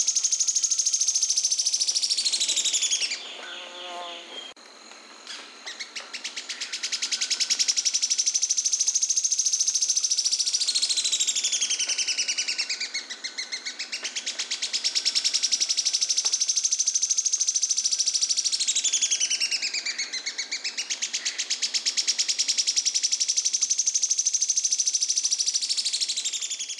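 Sharp-tailed streamcreeper (João-porca, Lochmias nematura) singing: long, very fast, dry trills of high notes that run on almost without a break. The trill drops out briefly a few seconds in, and its pitch dips low and climbs back twice.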